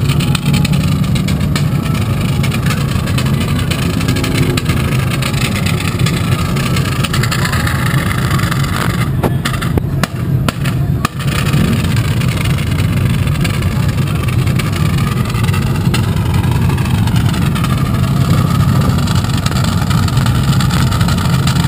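Side-by-side UTV engines idling close by in a steady low drone, with another engine revving up now and then. The sound breaks up briefly about ten seconds in.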